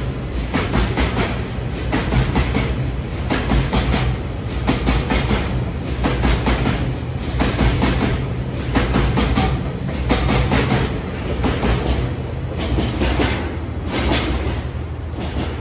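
Freight train of tank wagons passing at speed, its wheels clattering over the rail joints in a steady rhythm of clicks over a continuous rumble. The clatter eases as the end of the train goes by near the end.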